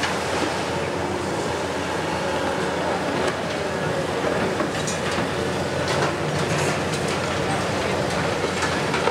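Hitachi 870 XXL demolition excavator running steadily, with scattered clatter and sharp knocks of concrete debris.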